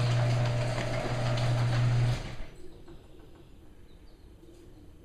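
A steady low machine hum with a hiss over it, which cuts off about two seconds in and leaves quiet background noise.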